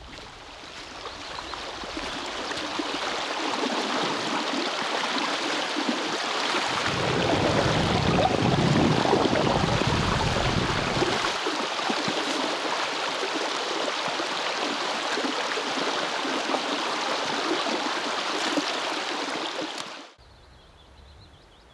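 Rushing stream water, a steady dense hiss that swells in over the first couple of seconds. A low rumble joins it for a few seconds in the middle, and the sound cuts off suddenly near the end.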